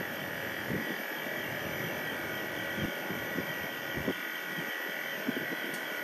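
Split air conditioner outdoor unit's compressor running during pump-down with its suction side pulled into vacuum. It is a steady hum with irregular low knocks underneath. This characteristic sound shows the refrigerant has been pumped into the outdoor unit and the service ports should be closed fully.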